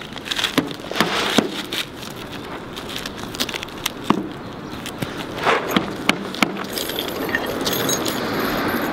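Asphalt ridge cap shingles scraping and crackling as they are lifted and slid back into place by hand, with scattered light clicks and taps.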